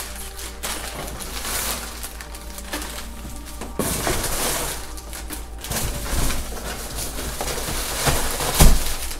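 Plastic air-pillow packing rustling and crinkling as strips of it are pulled out of a cardboard box, in repeated bursts, with a loud knock near the end.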